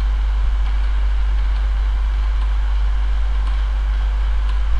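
Steady low hum with a faint hiss under it, the background noise of the narration recording, with no speech.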